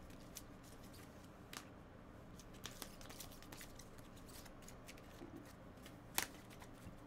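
Faint handling of trading cards: small clicks and rustles as the cards are gathered and sorted, with one sharper click about six seconds in.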